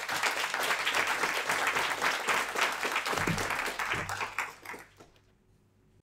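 Audience applauding with a dense patter of many hands clapping, which dies away about five seconds in.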